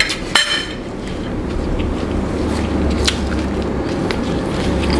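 A person eating by hand and chewing, with a sharp click shortly after the start and a few faint ticks later. A steady low hum runs underneath and grows stronger after about a second and a half.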